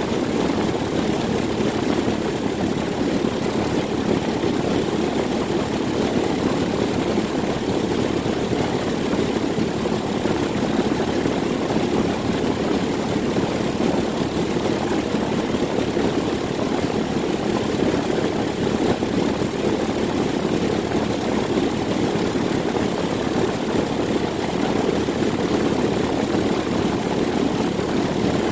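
1999 4-ton Corsaire (Rheem) central air conditioner condensing unit running steadily: its reciprocating compressor and outdoor condenser fan give an even, unchanging noise.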